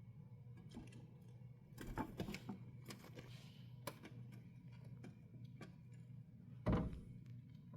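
Hamster nibbling and chewing bok choy: scattered small crisp clicks and crunches, busiest about two seconds in, over a steady low hum, with a louder soft thump near the end.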